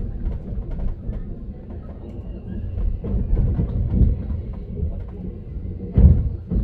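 Passenger train running on the rails: a steady low rumble with scattered clicks, and a loud knock about six seconds in.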